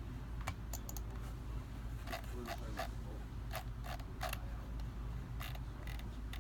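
A dozen or so short clicks and creaks at irregular intervals over a steady low hum.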